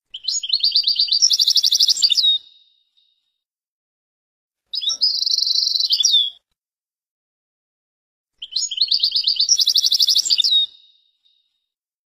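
European goldfinch singing: three high, fast-trilled song phrases of about two seconds each, separated by pauses of a couple of seconds.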